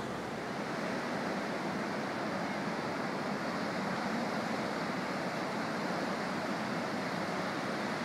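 Pacific surf breaking on a sand beach: a steady rushing noise in which no single wave stands out.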